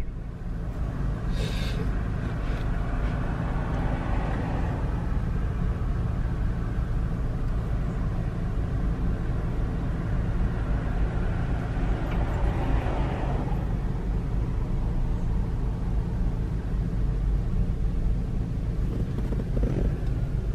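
Steady low rumble inside a stationary car with its engine idling, with a louder swell of noise a few seconds in and again about halfway through.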